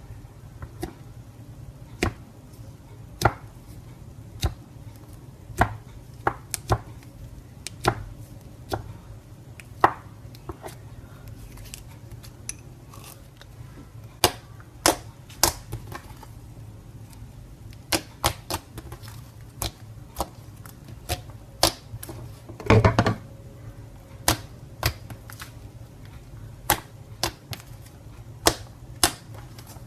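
Slime being handled and worked: sharp clicks and pops at uneven intervals, roughly one a second, with a short burst of crackling about two-thirds of the way through.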